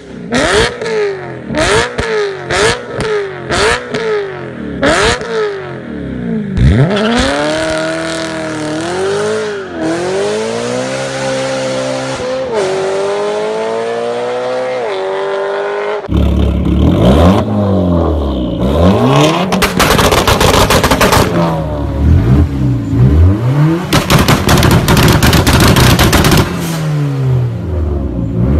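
BMW 3 Series sedan's engine blipped in quick revs with exhaust pops, then accelerating away, its pitch rising through several gear changes. About halfway through it switches to another car's engine revving under a dense, rapid crackle and popping of exhaust backfires.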